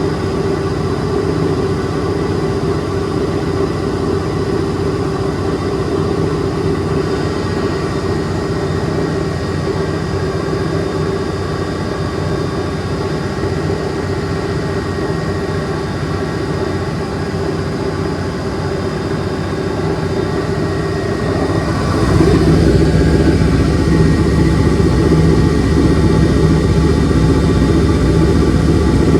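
A large coin-operated washing machine running with a steady mechanical hum and rumble. About three quarters of the way through it gets louder and deeper, as the drum's running changes.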